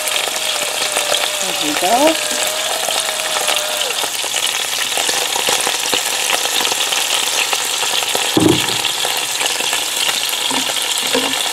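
Sirloin roast sizzling and crackling as it browns in hot avocado oil in a multi-cooker pot, with a brief low thump about eight seconds in.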